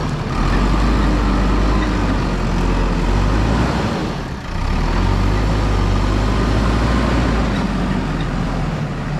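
Heavy diesel engine of earthmoving machinery running steadily, dipping briefly about four seconds in.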